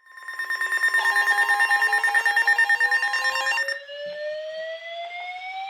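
NOAA Weather Radio emergency alert signal: a loud burst of steady and rapidly warbling electronic tones that cuts off sharply a little past halfway. A slowly rising tone sweeps upward underneath and carries on after the burst ends.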